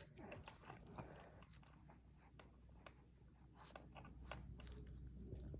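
Faint, irregular small clicks and crunches of a Yorkshire terrier mouthing and chewing a leafy green, over a low room hum.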